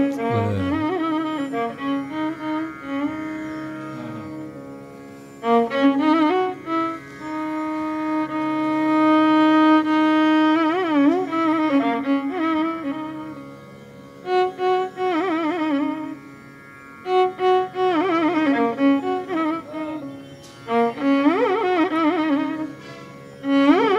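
Instrumental background music in a Carnatic style: a bowed-string melody with long held notes and sliding, wavering ornaments, broken by a few quieter pauses between phrases.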